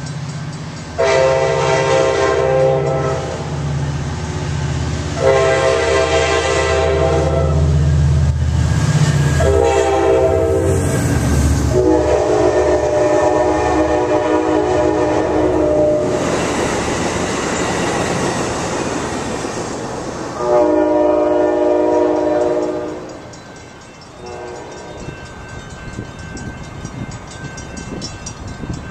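An F59PHI diesel locomotive leading an Amtrak Surfliner sounds its five-chime Nathan K5LA horn in the grade-crossing pattern of long, long, short, long, over the low hum of its diesel engine. The bilevel cars then roll past with a steady noise of wheels on rail, and the horn gives one more long blast followed by a faint short one further off.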